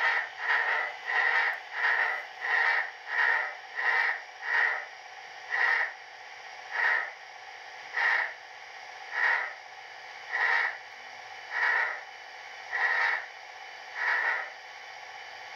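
Steam exhaust chuffs from the ESU LokSound decoder in an HO-scale Rivarossi Virginian Blue Ridge 2-6-6-6 locomotive, played through the model's small onboard speaker. The chuffs slow from about two a second to one every second or so as the model decelerates to a stop. They end shortly before the close, leaving a steady soft hiss.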